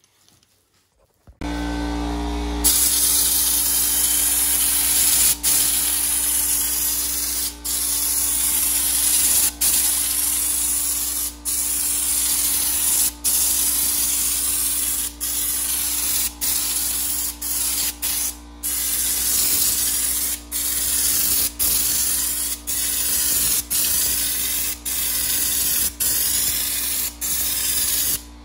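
Air-powered spray gun on a bottle of Raptor Liner bedliner spraying: a loud steady hiss that starts a couple of seconds in and breaks off for a split second every second or two. A steady hum runs underneath, starting about a second in.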